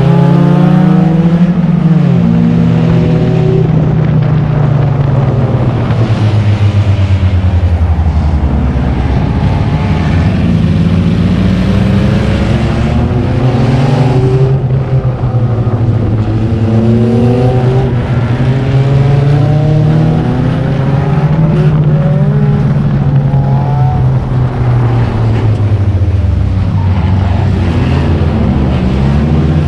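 Acura RSX race car's four-cylinder engine heard from inside its stripped, caged cabin, revving up and dropping off again and again as the car accelerates and lifts through the corners, over a steady rush of wind and road noise.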